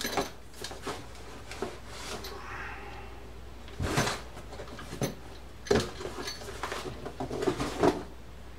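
Scattered knocks, clicks and rustling of someone moving about and searching the floor mat for a dropped small reel spring. Sharper knocks come about four seconds in, near six seconds, and in a cluster near the end.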